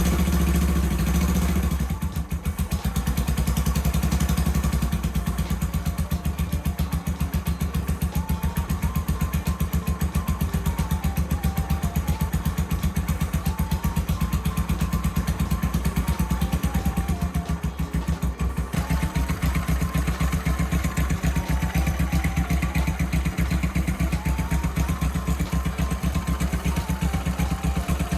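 Suzuki GS400's air-cooled parallel-twin engine running just after starting, louder for the first couple of seconds and then settling into a steady idle. The engine is the one brought in for an abnormal noise from inside it.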